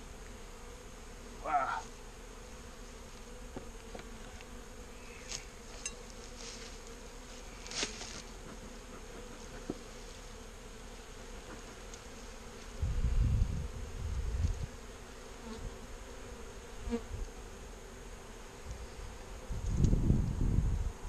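Honeybee colony in an open hive humming steadily at one low pitch, with a single bee buzzing close past about a second and a half in. The beekeeper calls it a serious roar and guesses it means the colony is queenless. A few light knocks, and low rumbles of handling noise about two-thirds through and again near the end.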